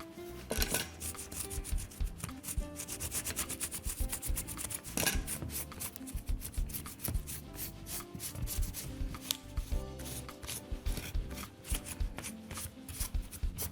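A cloth wetted with isopropyl alcohol rubbed and scrubbed over soldered electronics to clean off flux, in a quick, continuous run of short scratchy strokes.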